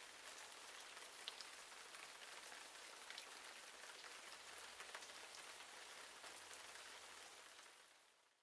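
Faint steady hiss with scattered light ticks, fading out near the end.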